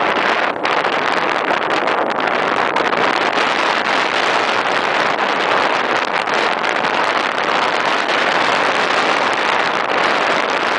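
Steady rushing wind and road noise from a moving car, with no distinct engine note.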